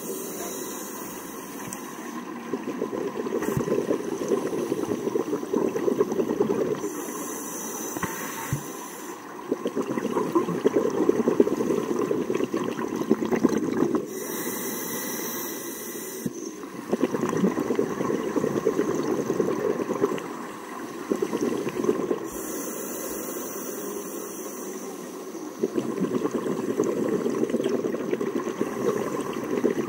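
Scuba diver breathing through a regulator underwater: a hissing inhale about every seven or eight seconds, each followed by a long, bubbling exhale.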